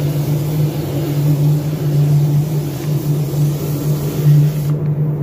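Air spray gun hissing as it lays a first light coat of 2K car paint on a door panel, over a steady low machine hum. The spray hiss cuts off near the end while the hum carries on.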